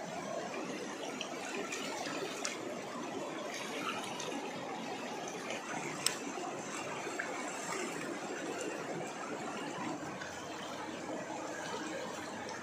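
River water rushing steadily, with a few sharp clicks over it.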